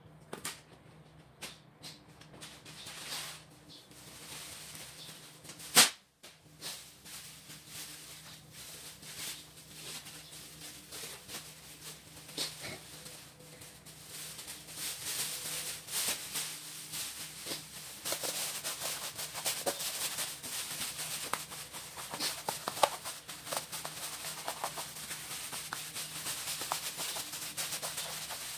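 Plastic sheet crinkling and rustling as it is spread and smoothed over a disposable aluminium foil pan, turning into dense crackling from about halfway in. Before that, scattered light clicks and one sharp snap about six seconds in.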